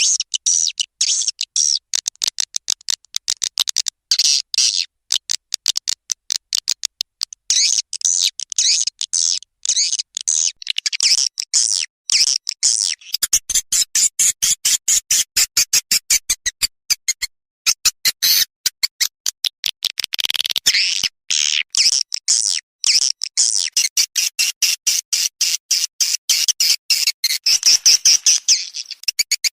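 Edible-nest swiftlet lure recording: rapid, high-pitched chattering twitters and clicks in quick repeated phrases, the call sound played to draw swiftlets into a swiftlet house.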